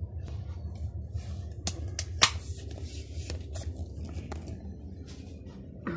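Handling noise from a phone being moved about in the hand: a run of clicks and rubbing against the microphone, the sharpest click a little over two seconds in, over a steady low room hum.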